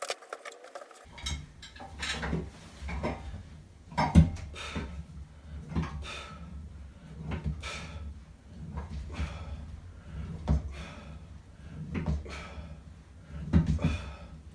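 Bowflex home gym's cables and pulleys clacking and rattling with each rep of a seated chest fly, about once every second and a half, starting about a second in.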